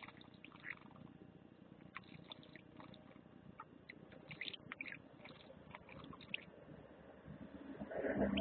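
Goldfinches bathing in a shallow stone birdbath: scattered small splashes and ticks over a low rumble, with a louder flurry of splashing and fluttering near the end.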